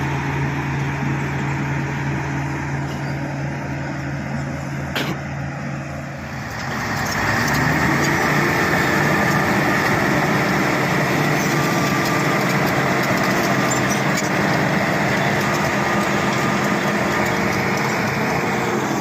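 Bulldozer's diesel engine running steadily, then revving up about a third of the way in and staying at the higher, louder speed.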